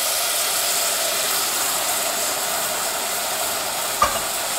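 Tamarind water poured into ginger and chilli powder fried in hot coconut oil, sizzling steadily as the liquid hits the hot pot. A single sharp knock about four seconds in.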